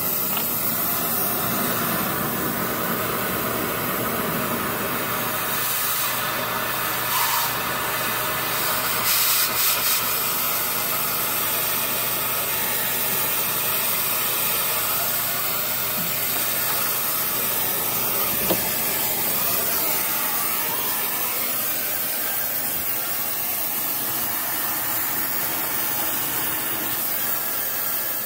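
Oxyacetylene torch burning with a steady hiss, briefly louder twice around seven and ten seconds in. It is being used to cut off badly rusted exhaust flange bolts.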